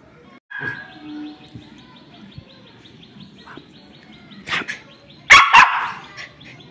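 Small Spitz dog barking: a softer bark about four and a half seconds in, then two loud barks in quick succession.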